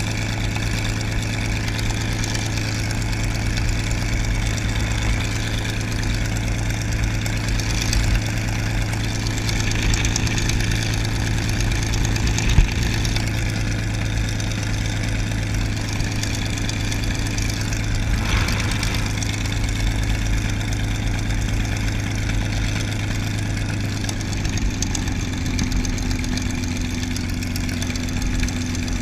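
Packard Merlin V-12 engine of a P-51D Mustang idling steadily with the propeller turning as the fighter taxis, heard from the cockpit. A single brief knock sounds about halfway through.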